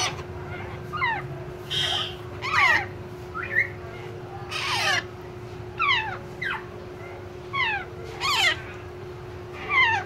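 Alexandrine parakeet chicks giving harsh, downward-sliding squawks, one after another in quick clusters every second or so. These are the begging calls of hand-reared chicks crowding a hand.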